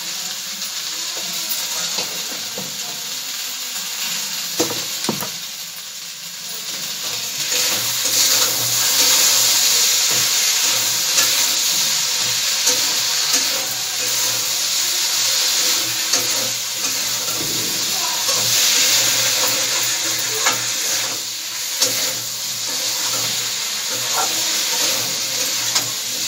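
Drumstick pods, potatoes and tomatoes sizzling in hot oil in a kadhai while a metal spatula stirs them. It gives a steady frying hiss with occasional sharp clinks of the spatula against the pan. The sizzle gets louder about seven seconds in.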